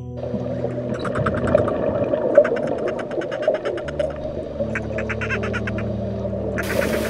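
Dolphin clicking underwater: several quick runs of rapid clicks over the hiss of moving water, with soft background music underneath. A brighter rush of water noise comes in near the end.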